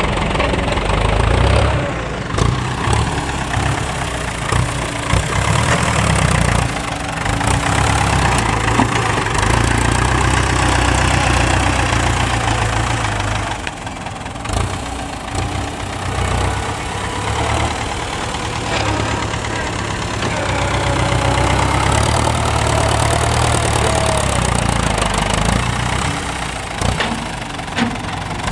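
Large diesel engine running at low revs close by, a steady heavy rumble that eases briefly about halfway through.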